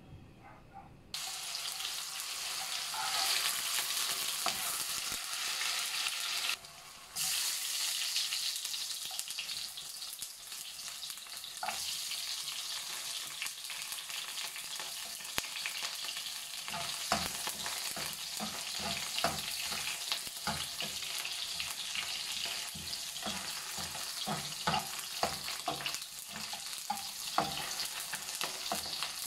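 Onion and garlic sizzling in hot oil in a nonstick wok, starting about a second in. From about halfway on, a spatula knocks and scrapes against the pan in quick, irregular strokes as the food is stir-fried.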